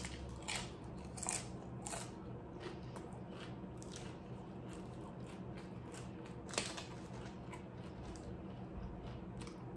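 Close-miked chewing of loaded nachos: crisp chips crunching in scattered sharp crackles, the loudest about six and a half seconds in.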